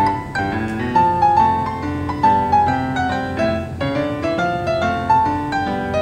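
Background piano music playing a gentle stepping melody of single notes over soft chords.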